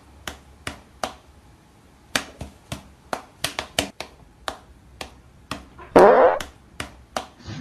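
A string of sharp clicks at an irregular two to four a second, then about six seconds in a loud rasping burst lasting about half a second.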